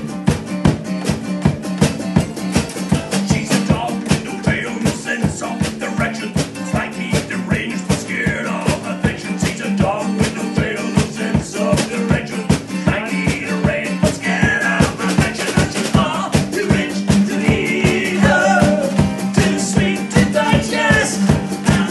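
Acoustic guitar and acoustic bass guitar strummed together in a fast, steady rhythm over a held bass note, with group singing coming in about four seconds in.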